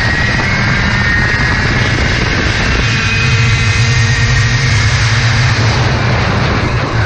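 Two-stroke 80cc mini kart engine running hard at racing speed, heard onboard as a loud, steady high-revving whine.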